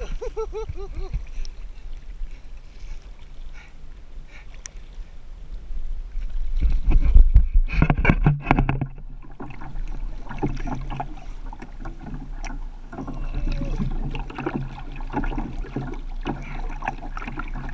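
Choppy sea water slapping and sloshing against a kayak right beside the microphone. About seven seconds in the splashing gets much louder for a couple of seconds, then turns briefly muffled as water washes over the microphone.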